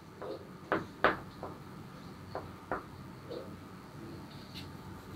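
Chalk on a blackboard as a few letters are written: a handful of short, faint taps and scratchy strokes, spaced irregularly over a few seconds.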